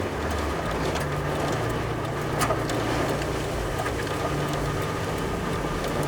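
A car being driven through hurricane wind and rain: a steady, dense rush of wind and rain over a low engine hum, with scattered short sharp ticks.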